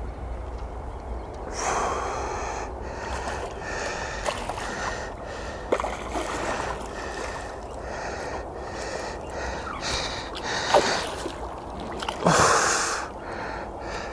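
Water sloshing and splashing as a hooked carp swirls and thrashes at the surface close to the bank while being played, with a few louder splashes, the loudest near the end.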